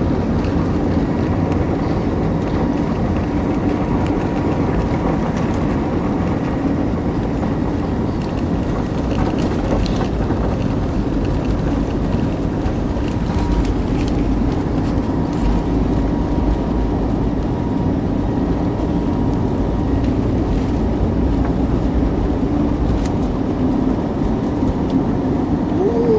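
Airliner cabin noise during takeoff: a loud, steady drone of engines and rushing air, with a few faint steady hums running through it.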